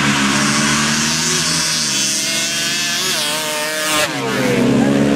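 ATV engines at full throttle as quads accelerate down a sand drag strip, the engine pitch climbing as they gain speed. About four seconds in the sound breaks off abruptly and another engine note carries on.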